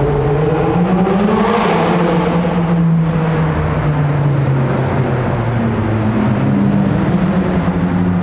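Car engines running in a road tunnel, echoing off the walls, with one car passing close by about two seconds in.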